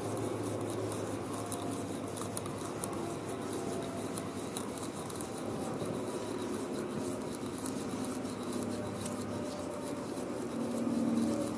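Drill boring into a timber with a large auger bit to clear out a mortise: a steady drone with the scraping of wood chips being cut.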